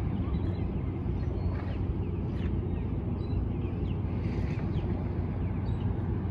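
Outdoor waterfront ambience: a steady low rumble with scattered short, faint bird chirps.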